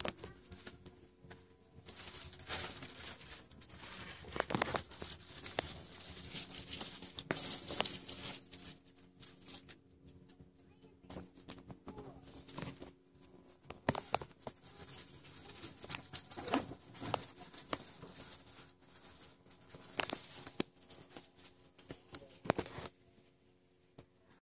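Bursts of rustling and crinkling with scattered clicks, stopping and starting, over a faint steady hum.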